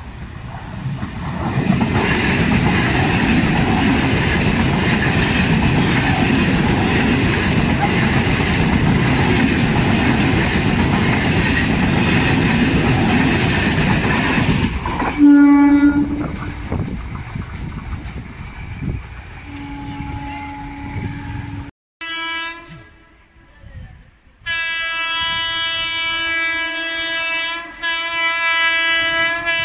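An electric suburban EMU local train passing close by, its steady running noise lasting about fifteen seconds, followed by short horn blasts. After a break, a long, steady train horn sounds from an approaching train, pausing briefly near the end.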